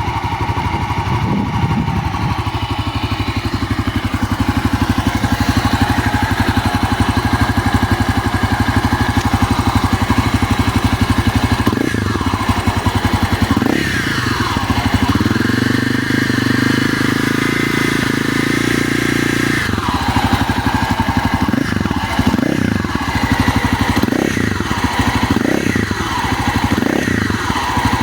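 Regulmoto Holeshot motorcycle engine idling steadily, then revved: two short blips, a held higher rev, then a run of quick throttle blips. A squeal comes up with the revs, an extraneous engine noise the owner cannot identify.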